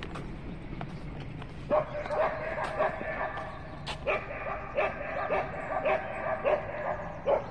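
Dog barking repeatedly, roughly two short barks a second from about two seconds in, excited at a squirrel up a tree.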